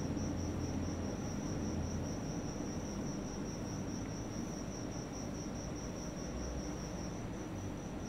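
A cricket trilling steadily, a high, evenly pulsing tone, over a low background hum.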